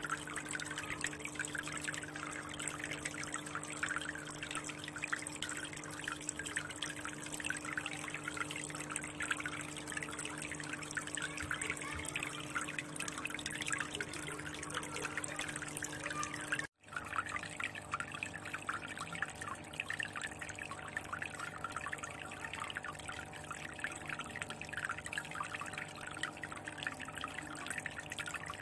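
Aquarium water trickling and splashing steadily from a spout, over a low steady hum. The sound cuts out for an instant about 17 seconds in, then carries on.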